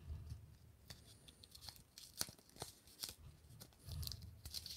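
Blue painter's tape handled close up as strips are torn and pressed into place: faint tearing and crinkling with scattered small ticks, a little louder near the end.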